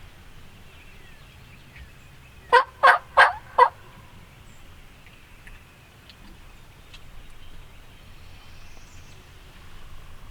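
Wild turkey tom gobbling once, close by: one loud, rapid rattling call of about four pulses, lasting about a second, a little over two seconds in.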